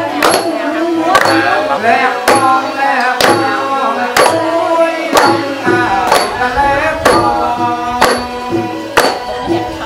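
Traditional wedding music, likely Khmer, with a drum stroke about once a second under a melody of sliding, bending notes.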